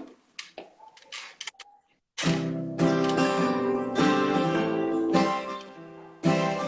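Acoustic guitar intro to a song, starting about two seconds in after a few faint clicks, with chords strummed and left ringing.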